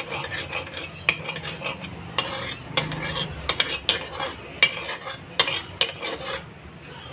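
Metal spatula scraping and clacking against a wok, stirring in hot oil, with a sizzle underneath; the strokes stop about six and a half seconds in.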